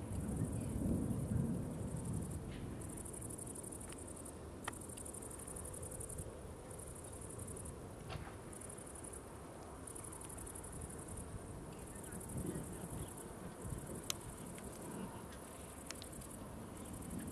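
Crickets singing in the grass: a high, buzzing song that starts and stops every second or so. Under it, a low rumble of wind on the microphone is strongest in the first couple of seconds.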